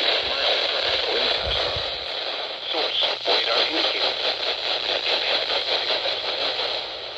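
Weather radio broadcast received through heavy static: a voice, too faint to make out, under steady hiss and a low hum.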